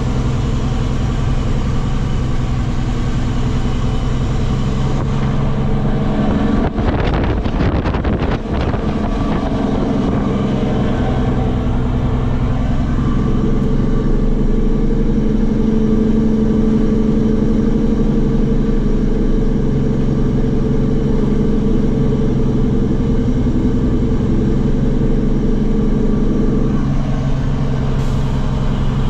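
Loaded diesel truck heard from inside the cab, its engine running on the Jake (engine compression) brake to hold it back down a steep hill. There is a burst of rattling about seven seconds in, the engine note steps up about 13 seconds in, and it drops back near the end.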